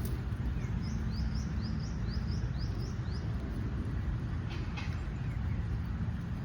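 A small bird chirping a quick run of about ten short rising notes in the first few seconds, over a steady low outdoor rumble.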